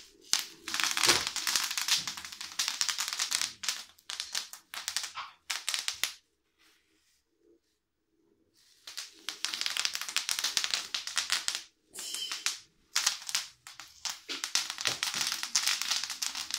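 Bubble wrap crackling and popping in rapid runs of sharp clicks as self-balancing hoverboard wheels roll over it. The crackling stops for about three seconds partway through, then resumes with one more short break.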